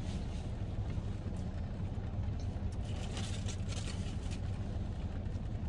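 Steady low hum of a car running, heard from inside its cabin. About three seconds in come soft rustles and clicks as food and its packaging are handled.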